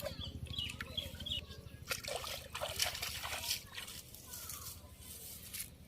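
Water splashing and trickling in irregular surges, strongest about two to three and a half seconds in.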